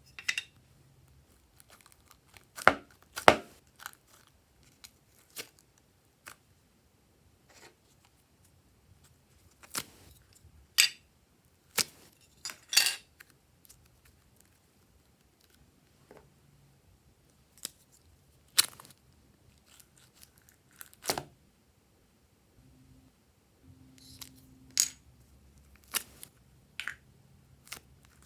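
Glossy slime being worked, giving scattered sharp pops and crackles at irregular intervals, a few of them loud.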